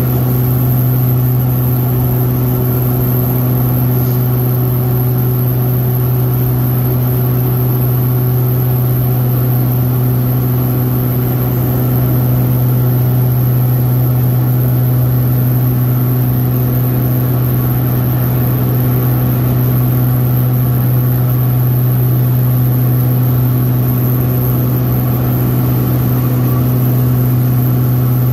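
Steady, loud drone of a small propeller plane's engine heard from inside the cabin in flight, dominated by a strong low hum.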